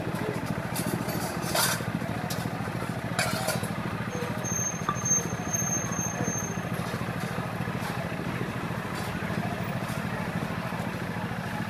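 Busy street ambience: a steady engine hum under background chatter, with a couple of sharp clicks in the first few seconds.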